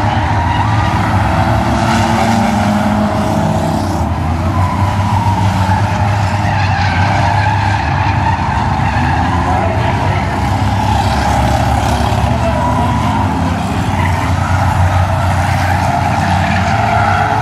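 A pack of stock cars racing around a short oval track: many engines running at speed together in a steady, loud drone, rising and falling as cars pass, with tires squealing through the turns.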